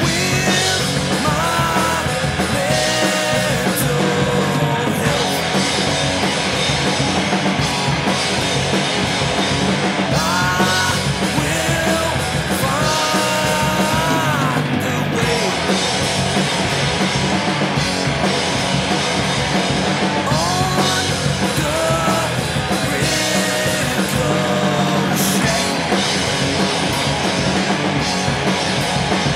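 Rock band playing: electric guitars, bass guitar and drums, with a man singing a few phrases over them.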